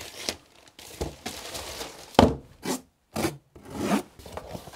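Scissors cutting open a plastic mailing bag, with the plastic rustling, crinkling and tearing in a series of short scraping strokes, then a cardboard box being handled. A sharp knock about two seconds in is the loudest sound.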